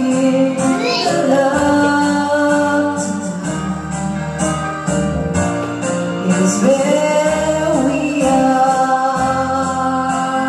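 A woman singing karaoke through a microphone over a music backing track with a steady beat, holding long notes.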